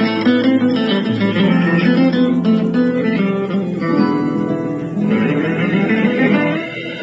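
Background music led by acoustic guitar, plucked notes and strums.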